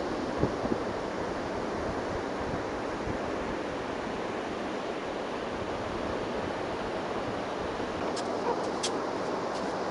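Steady wash of ocean surf with wind. A couple of soft thumps come about half a second in, and a few faint clicks come near the end.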